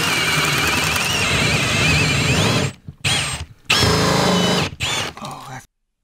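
Power drill running a hole saw through wood lap siding: a steady motor whine with the saw cutting, wavering in pitch, for nearly three seconds, then two shorter bursts of drilling before it stops.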